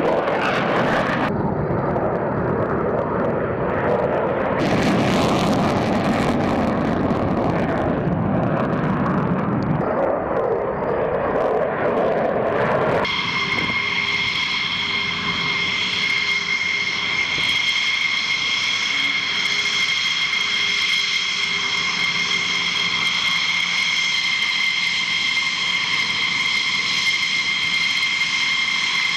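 F-15 fighter jet engines running at high power during a takeoff: a loud, broad rushing roar. After about thirteen seconds this changes to a steady high-pitched turbine whine from F-15s taxiing at low power.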